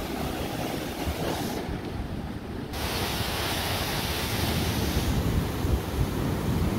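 Ocean surf breaking and washing over the shallows, a steady rush that grows louder about three seconds in.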